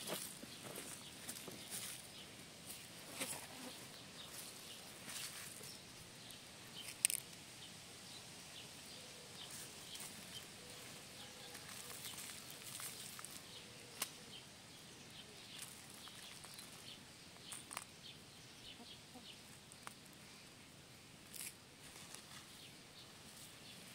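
Quiet rural outdoor ambience with scattered faint short clicks and chirps and one sharper knock about seven seconds in.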